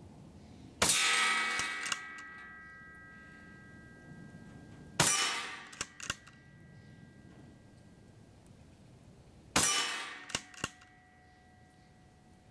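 Daystate Delta Wolf .25-calibre PCP air rifle firing three shots about four and a half seconds apart. Each shot is a sharp crack followed by a metallic ring that hangs for a few seconds, and after the second and third shots come a couple of light clicks.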